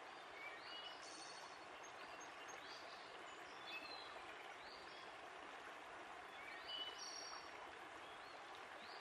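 Faint steady hiss of moving water with scattered short bird chirps and whistles, about one or two a second.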